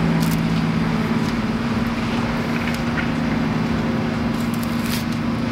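A steady low mechanical hum over an even background noise, with a few faint clicks scattered through it.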